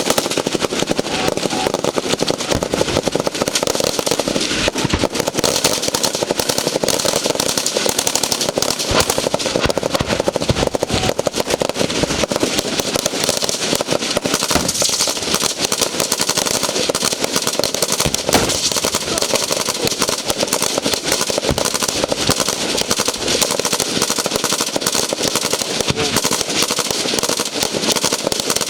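Rapid, continuous gunfire, with shots following one another closely and no break.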